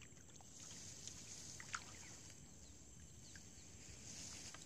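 Faint outdoor marsh ambience: a steady high hiss with a few short, high chirps about two seconds in.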